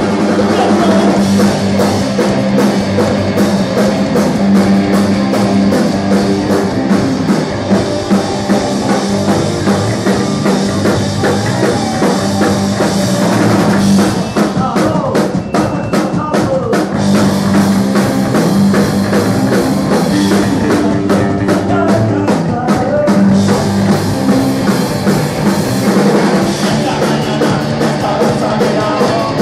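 Punk rock band playing live and loud: distorted electric guitars, electric bass and a drum kit driving a steady fast beat.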